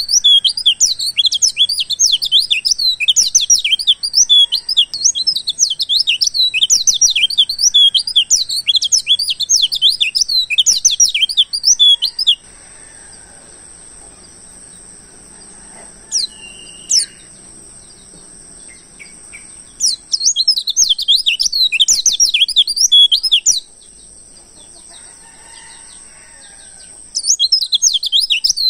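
Wild white-eye (pleci) song used as a lure and tutor recording: fast, high, twittering chirps in three long bursts, broken by two pauses, with a couple of thin rising whistles in the first pause. A steady thin high tone runs underneath.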